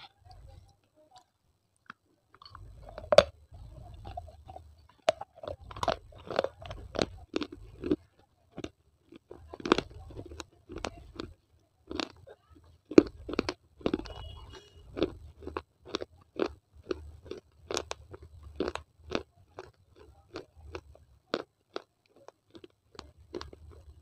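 Baked clay pieces being bitten and chewed, a quick run of sharp, brittle crunches about two to three a second, starting about two seconds in, with a few louder cracks among them.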